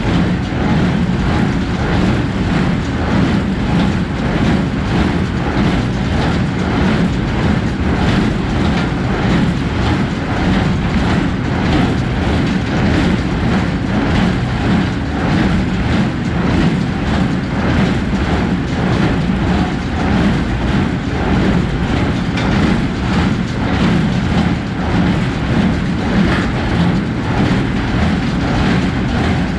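New Holland 310 small square baler running under power, a loud, steady mechanical clatter with a fast even rhythm from its working parts.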